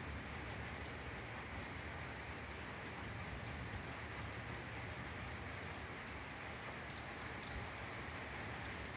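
Steady rain falling on a grassy yard: an even, unbroken hiss with scattered faint drop ticks.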